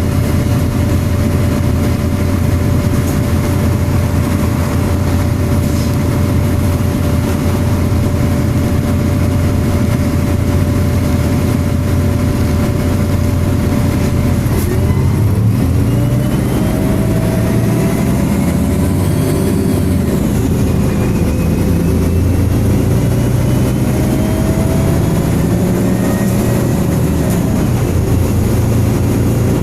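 MAN-chassis Enviro300 single-deck bus heard from inside the cabin: the diesel engine and its cooling fan run with a steady whine for the first half. From about halfway the whine drops away and the engine notes rise and fall in pitch as the bus drives on.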